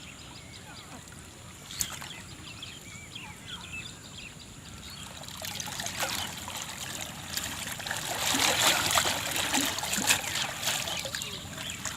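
Water trickling and splashing, faint at first, then building about halfway through into a busy run of splashes and drips that is loudest near the end.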